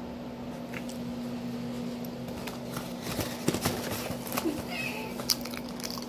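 A plastic bag of powdered mini donuts crinkling as it is handled, in scattered sharp clicks starting about halfway in, over a steady low hum.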